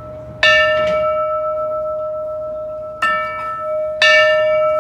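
Steam locomotive's brass bell struck three times, about half a second in, near three seconds and again a second later. Each stroke rings on long and clear, overlapping the last.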